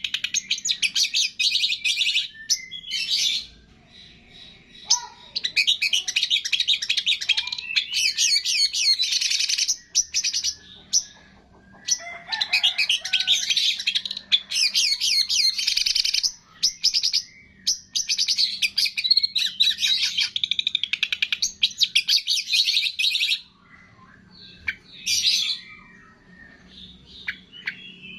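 Songbird singing in long, rapid chattering phrases of several seconds each, separated by short pauses.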